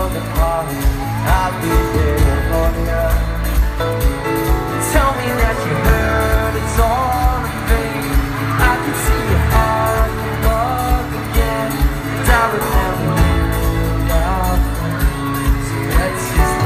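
Live pop band performance: male voices singing a melody over a band with a steady drum beat, heard from the audience.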